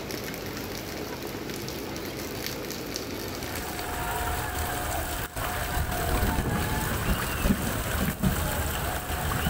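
Steady rushing of floodwater and rain. About three and a half seconds in it becomes louder and rougher, a mix of rain and wind buffeting the microphone, with a faint held tone in the background.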